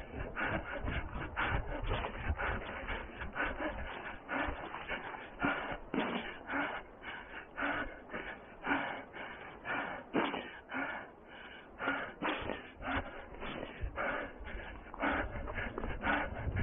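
A runner's footsteps on the forest floor with undergrowth brushing and rustling against legs and body, heard close from a head-mounted camera, in a steady running rhythm of about two to three strides a second.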